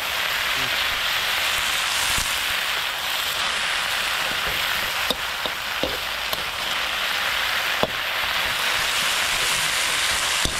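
Leafy greens sizzling as they are stir-fried in a steel wok, a steady frying hiss with a few sharp clinks of a metal spatula against the wok.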